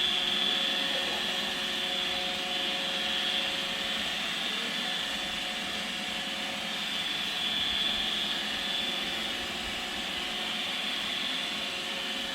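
iRobot Roomba 971 robot vacuum running: a steady whir of its vacuum motor and brushes with a constant high whine.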